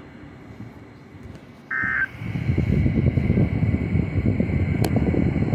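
Weather radio receiver between messages: faint hiss, a short beep about two seconds in, then steady crackling static with a sharp click near the end.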